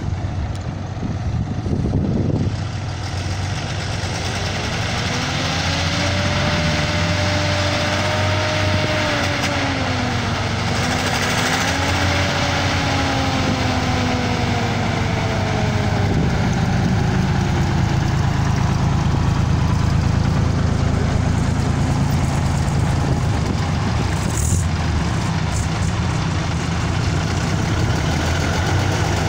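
Diesel engines of vintage heavy trucks running as the lorries move off one after another. There is a steady low engine sound throughout, and one engine's pitch rises and falls for several seconds in the first half.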